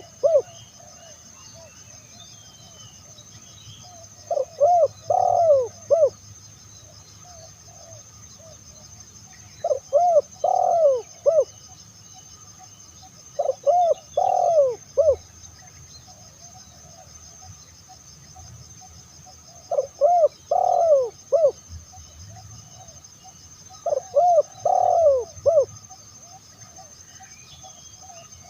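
Spotted dove cooing: five phrases of three or four short, arched coos each, repeated every four to six seconds.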